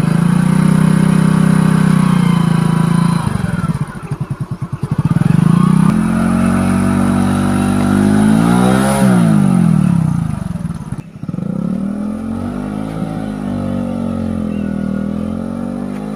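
Small commuter motorcycle's engine pulling away in first gear, the revs rising and falling unevenly as a beginner eases out the clutch and works the throttle, with a brief sag about four seconds in and a quick rev up and down near the middle. After an abrupt break, the engine runs on at a steadier, slightly wavering and quieter note.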